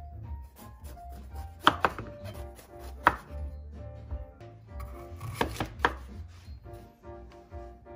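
Kitchen knife cutting through bell peppers on a wooden cutting board. The blade knocks sharply on the board twice, then three times in quick succession a little past the middle.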